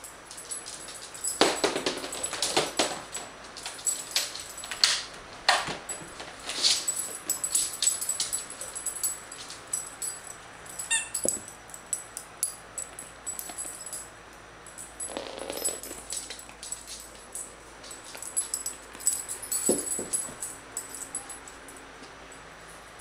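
A rubber hamburger squeak toy being squeezed and squeaked in irregular bursts as a puppy chews it, with a quieter stretch in the middle.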